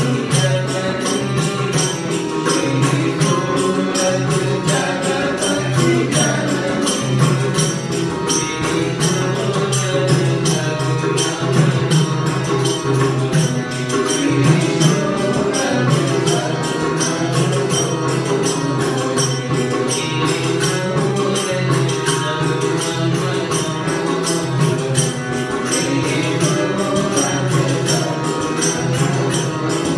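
Devotional bhajan music: group singing over a steady, fast percussion beat.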